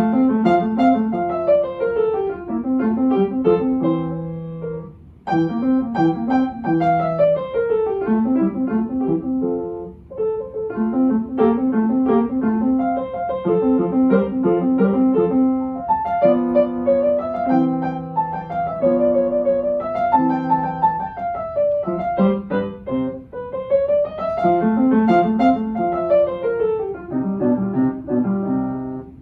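Solo upright piano played with quick running passages, scales and broken chords rising and falling in phrases, with brief breaks between phrases. The playing starts sharply at the opening.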